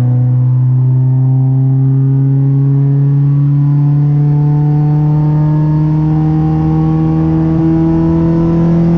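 Honda four-cylinder VTEC engine accelerating in a long, steady pull, its note climbing slowly and evenly in pitch without a break or gear change.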